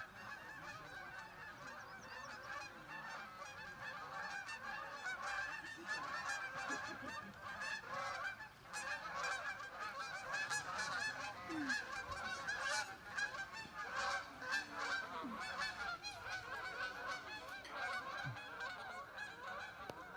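A flock of Canada geese in flight, honking continuously, with many calls overlapping.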